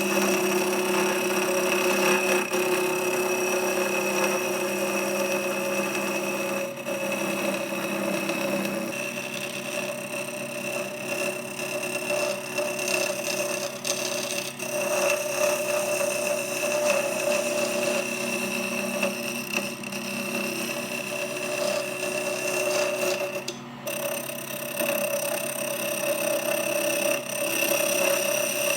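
Rockler Excelsior 5-speed mini lathe running with a steady motor whine while a wooden handle is turned on it, with a hiss of the tool cutting over it. The tone shifts about nine seconds in and again near twenty-four seconds.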